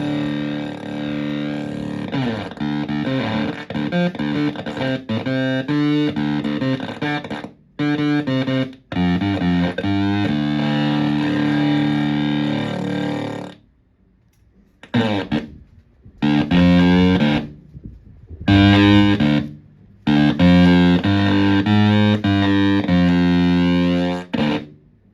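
Electric guitar in drop D played through a silicon Fuzz Face-style fuzz pedal with a bias control, into a clean amp: fuzzed riffs and held chords with brief stops, then, about halfway through, a run of short chord stabs and a longer phrase that cuts off near the end.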